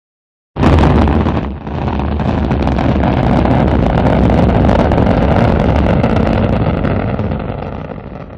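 Space shuttle rocket launch sound effect: a loud, steady rumble that starts suddenly about half a second in, dips briefly, then holds and fades near the end.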